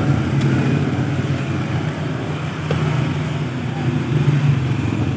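A motor vehicle engine running close by, a steady low drone that swells and eases slightly, with street traffic noise.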